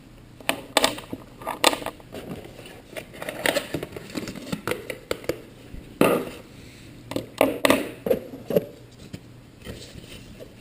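Scattered clicks, taps and crinkling of a product box, its papers and cables being handled, loudest in a cluster of knocks a little past halfway.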